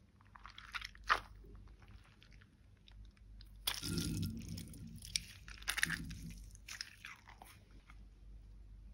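Water-bead squishy ball being cut open with scissors and its clear gel beads spilling out into a glass tray, in two louder bursts of spilling about four and six seconds in, with smaller clicks and rustles of handling around them.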